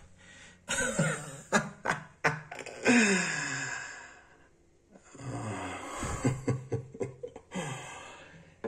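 A man's wordless vocal sounds, one of them drawn out and falling in pitch about three seconds in, with a few sharp clicks in between.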